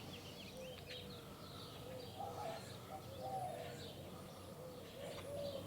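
Faint bird calls: short high chirps and lower warbling notes over a quiet outdoor background.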